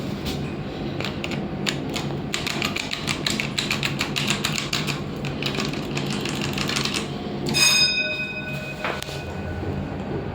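Otis passenger lift car travelling down with a steady low hum. From about two seconds in there is a rapid clatter of clicks, and about seven and a half seconds in an electronic lift chime sounds for about a second.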